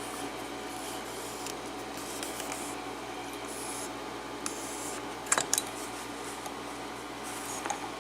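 Soft rubbing and a few small sharp clicks as a padlock is handled and set into a bench vise. The loudest is a quick pair of clicks about five and a half seconds in.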